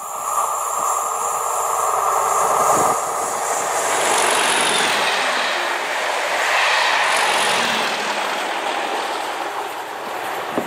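Class 37 diesel locomotives with English Electric V12 engines thrashing hard as they pass at speed, a loud steady engine note for the first few seconds. From about four seconds in comes the rushing noise of the coaches' wheels going by on the rails.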